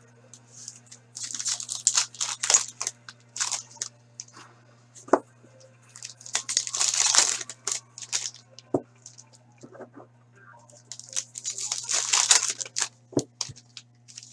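Foil wrappers of hockey card packs being torn open and crinkled by hand, in three bursts of rustling and tearing, with a few short clicks in between.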